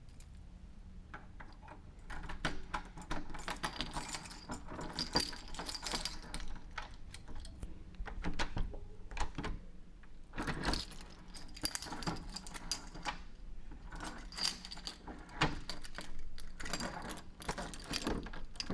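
Metal keys jingling and clinking as they are handled, in irregular bursts starting about two seconds in.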